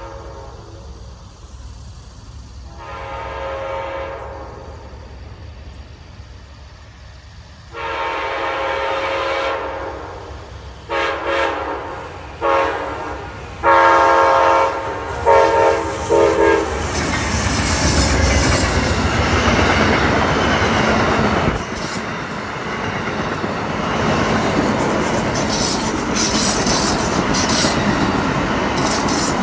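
Amtrak diesel passenger train approaching and passing: the locomotive's horn sounds a series of blasts, a faint one first, then a long blast, a few short ones and another long one, each louder as it nears. From about halfway through, the locomotive and the rolling passenger cars pass close by with a steady loud rush of wheels on rail and some clickety-clack.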